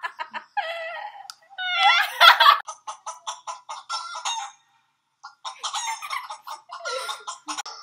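Chicken sound effect: a crow-like call with a rising pitch in the first couple of seconds, then rapid clucking that stops briefly and starts again.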